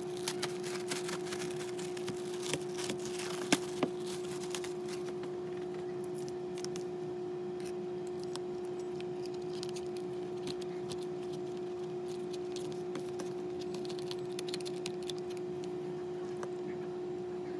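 Light clicks and taps of a laptop's metal case and parts being handled, mostly in the first few seconds with two sharper clicks about three and a half seconds in, over a steady hum.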